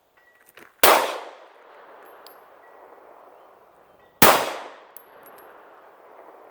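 Two 9mm shots from a Glock 17 pistol, about three and a half seconds apart, each a sharp crack that fades out over about half a second.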